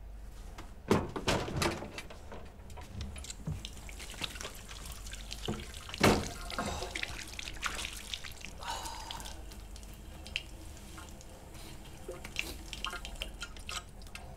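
Water splashing and dripping in a bathroom sink, with irregular spatters throughout and louder splashes about a second in and about six seconds in.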